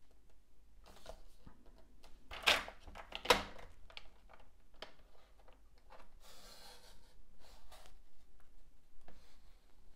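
Paper trimmer cutting cardstock: two sharp clacks about a second apart near the start, the loudest sounds, then a short scraping hiss as the cutting head slides along the rail, with small clicks and rustles of the card being handled.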